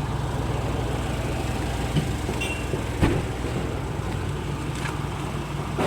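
Eicher BS6 coach van's diesel engine idling steadily, with a couple of light knocks about two and three seconds in.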